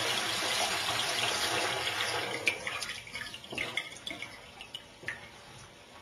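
Tap water running down a length of pipe into a stainless-steel sink, a steady rush. About two seconds in the flow is shut off, and scattered drips follow, fading away.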